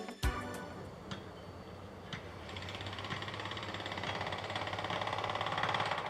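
Engine of work machinery at a level crossing worksite running steadily, with a low thump just at the start and a louder whirring noise building up from about halfway through.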